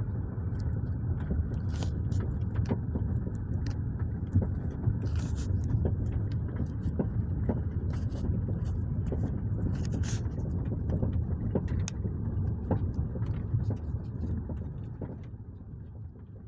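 Nissan Primera P12 on the move, a steady low road rumble with irregular sharp knocks from the right front strut area, the suspension fault the car is being checked for. The rumble dies away near the end.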